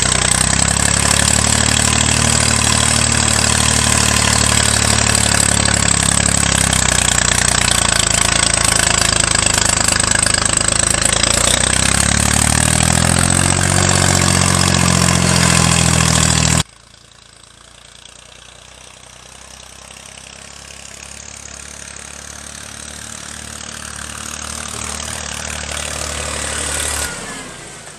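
Small diesel tractor engine of a Jinma-built Iron Horse 224 running under load in first gear as it pulls uphill, heard loud and close from the seat, its pitch dipping and rising. About two-thirds through it switches to the same tractor heard from farther off, getting steadily louder as it drives closer.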